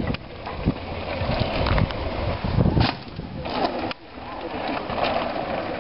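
Downhill mountain bikes rattling over a dry dirt track, with wind buffeting the microphone. The sound breaks off and restarts about four seconds in.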